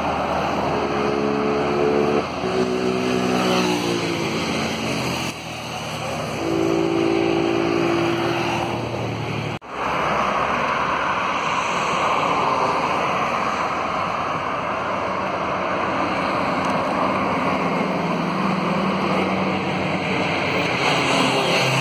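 Road traffic of articulated trucks and cars passing: in the first half a truck engine's hum shifts in pitch over the rush of tyres. After a sudden break about ten seconds in, passing vehicles give a continuous rushing tyre and engine noise.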